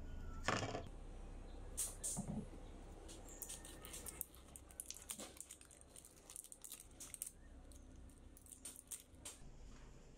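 Faint handling noises from gloved hands: a knock about half a second in as the rusty metal spatula is set down in a plastic tub, then a string of light clicks and rustles as a plastic squeeze bottle with a red nozzle cap is handled.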